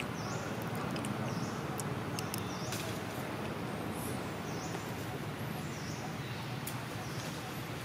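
Steady outdoor background rumble and hiss, with faint short high chirps repeating about once a second. No monkey call stands out.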